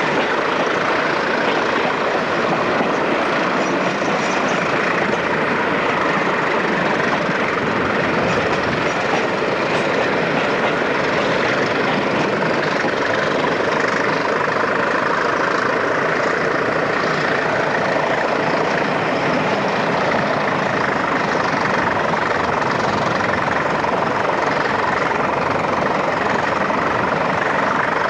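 Steady running noise of a diesel-hauled train, heard from an open carriage window: wheels on the rails, air rushing past, and the engines of the pair of BR Class 20 locomotives at the head.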